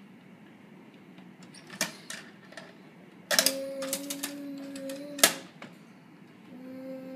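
Plastic clicks and clatter of toy wheelie bins being handled against a plastic toy garbage truck: a couple of single clicks, then a quick run of clicks over about two seconds ending in one sharp snap. Under that run a steady low hummed note holds, then stops with the snap.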